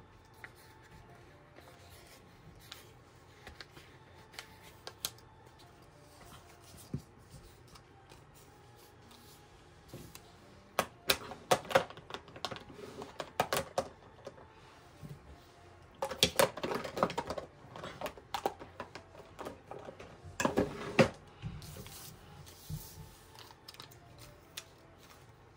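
Paper and sticker backing crinkling and rustling in the hands, with small clicks and taps. Faint scattered ticks at first, then louder, denser crinkling from about eleven to fourteen seconds in and again from about sixteen to twenty-two seconds in.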